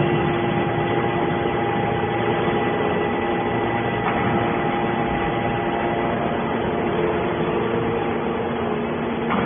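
Hydraulic scrap metal baler running, its power unit giving a steady hum of several constant tones over a noisy wash, with a faint knock about four seconds in and another near the end.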